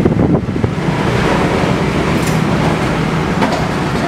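Strong wind gusting and buffeting the microphone: a steady low rumble with a few brief clicks.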